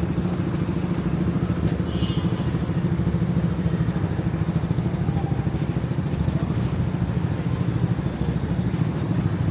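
Steady low rumble of a motor vehicle engine running close by, with a fast flutter.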